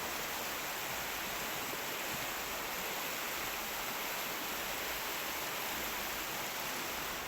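Steady rushing of a stream's flowing water, an even hiss that holds at one level.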